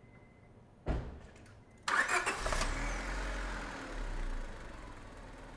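2005 Honda Civic's 1.7-litre four-cylinder engine being started: a short burst about a second in, then it cranks, catches and settles to a steady idle.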